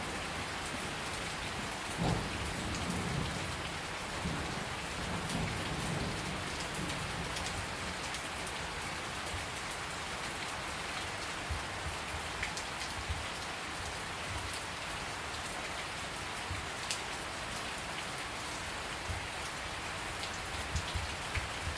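Steady rain pouring down, with scattered drops ticking sharply on a surface. A low thunder rumble sounds in the first few seconds and dies away by about a third of the way in.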